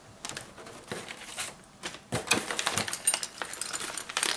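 Plastic parts bags rustling and crinkling as a hand rummages in a cardboard box, with small hard parts clicking inside the bags. The handling is light at first and grows busier and louder from about halfway through.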